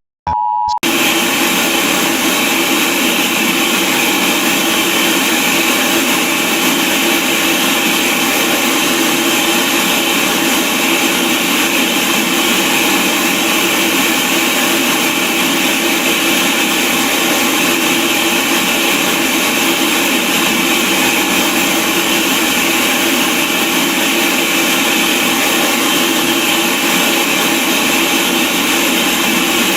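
A brief electronic tone, then loud, steady broadband static hiss. It sounds like a dead broadcast signal after the emergency message cuts off.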